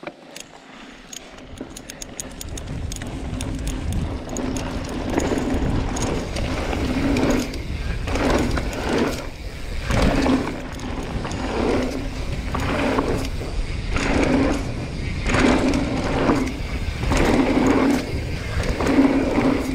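Mountain bike rolling down a dirt trail: wind and tyre rumble build as it gathers speed. The rear hub's freewheel clicks rapidly at first, then buzzes in short bursts about once a second while coasting.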